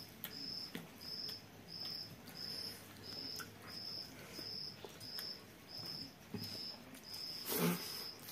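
A cricket chirping steadily, short high-pitched chirps of one pitch at just under two a second. Faint soft clicks come from eating with the hands, and a brief louder noise sounds near the end.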